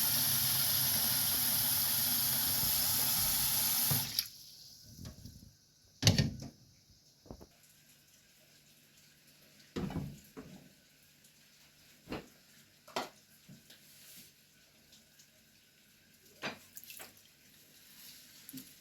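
Tap water running into a sink, turned off about four seconds in. Scattered knocks and clatters follow, the loudest about two seconds after the water stops.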